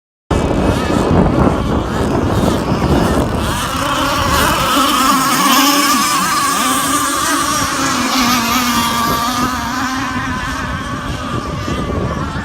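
Radio-controlled race boats running at speed: a steady, high-pitched engine whine whose pitch wavers slightly, with wind rumble on the microphone. The sound cuts in abruptly just after the start.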